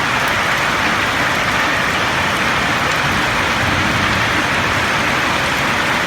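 Steady, heavy rain falling on a roof, a dense even patter without let-up.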